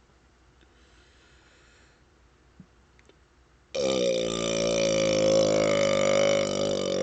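One long, loud burp from a man who has just chugged Dr Pepper, the gas coming up from the carbonated soda. It starts suddenly a little past halfway through after a few seconds of near quiet and is held at a steady pitch for several seconds.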